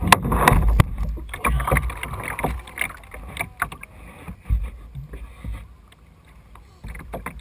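Irregular knocks and clatter, with wind buffeting the microphone; it goes quieter about six seconds in.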